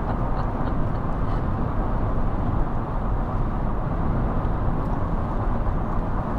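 Steady, low road noise inside the cabin of a moving car.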